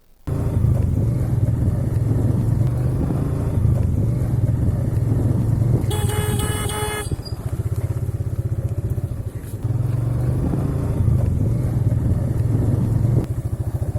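Motorcycle engine running steadily under way, a low rumble. A vehicle horn sounds once for about a second, about six seconds in.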